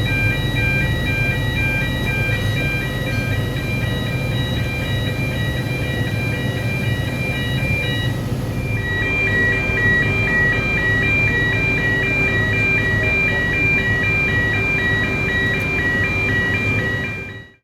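Electronic warning alarm of a pivot flood gate sounding as the gate operates: short repeating tones stepping between pitches, over a low steady hum. The tone pattern changes about halfway through, and the sound cuts off abruptly at the end.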